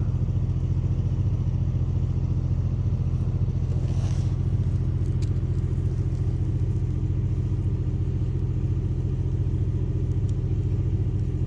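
Heavy-equipment engine idling steadily at an even pitch, with a couple of faint clicks over it.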